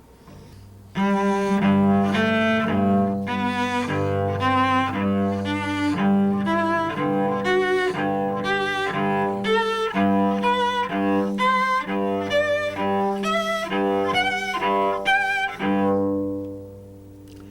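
Solo cello playing a G major scale with the open G string ringing beneath it as a pitch reminder. It is a quick run of evenly bowed notes about two a second that fades out near the end.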